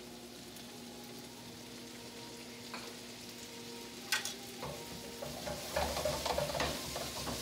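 Pork and vegetables sizzling gently in a nonstick wok over a steady low hum. A sharp clack about four seconds in, then a utensil and tongs scraping and clattering against the pan as the stir-fry is tossed.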